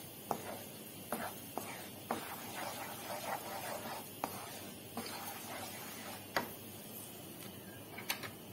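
Flour and butter frying in a non-stick pan, bubbling and sizzling as it toasts, while a wooden spoon stirs it, scraping and giving irregular sharp taps against the pan.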